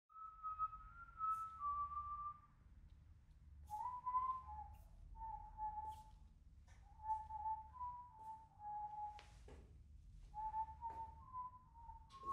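A person whistling a tune in short phrases of held notes with pauses between them, over a faint low hum, with a few brief clicks between the phrases.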